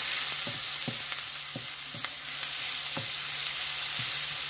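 Sliced onions sizzling in hot oil in a frying pan, with a steady hiss and repeated light knocks of a wooden spatula against the pan as they are stirred.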